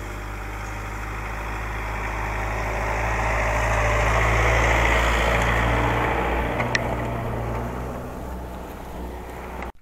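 Mitsubishi L200 pickup truck's engine idling, a steady low hum that grows louder toward the middle and fades again, with one short sharp click about two-thirds of the way through; it cuts off abruptly at the end.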